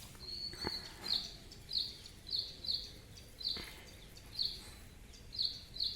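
A bird chirping over and over, short high chirps about every half second at uneven spacing. Two brief clicks come through, one near the start and one about halfway.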